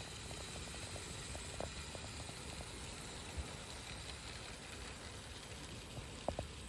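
Garden-scale model train passing on outdoor track: a quick run of light, evenly spaced clicks from its wheels going over the rail joints in the first couple of seconds, with a couple more near the end, over a steady low rumble.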